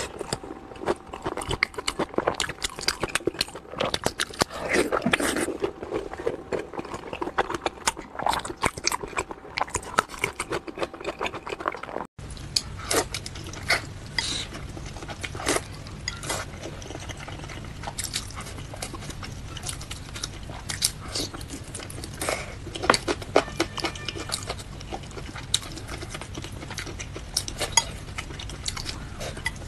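Close-miked eating sounds with many small wet clicks: chewing of braised pork skin rolls, then, after a sudden cut about 12 seconds in, chewing of wide noodles eaten over rice with chopsticks in a glass bowl, over a steady low hum.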